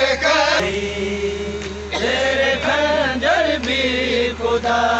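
Male voices chanting a noha, a Shia mourning lament, in a drawn-out melodic line. A steady low hum runs underneath.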